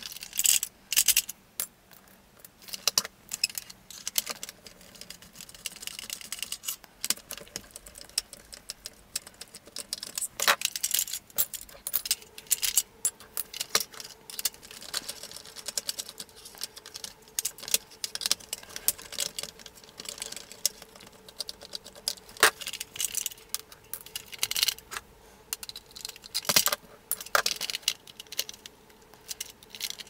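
Small hand screwdriver unscrewing screws from the hard plastic body of a vintage Kenner M.A.S.K. Jackhammer toy car. There are irregular clicks and rattles as the screws turn and the plastic vehicle is handled and turned over.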